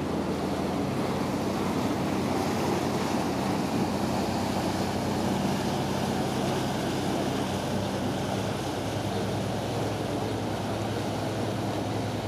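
Sightseeing boat passing close and pulling away, its engine a steady low hum under the rush of its propeller wash churning the water, with some wind on the microphone.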